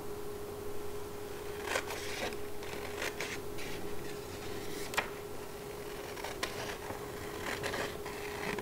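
Scissors cutting through a sheet of red paper: a run of irregular snips, the sharpest about five seconds in.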